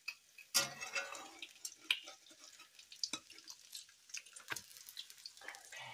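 Pancake and bacon frying in cast-iron skillets: irregular crackling and popping, with a louder, denser burst about half a second in.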